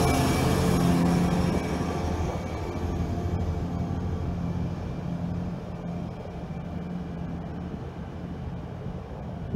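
Diesel locomotive engine running with a steady low drone as the locomotive moves away, fading over the first few seconds and then holding faint.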